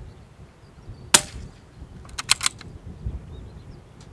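Scoped rifle fired from the prone position: one sharp shot about a second in, a quick run of metallic clicks a second later as the action is worked, and a second shot right at the end. Wind rumbles on the microphone underneath.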